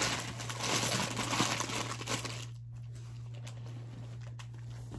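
Crinkling and rustling of items being handled and packed into a tote bag for the first two and a half seconds, then it stops, leaving only a few light taps.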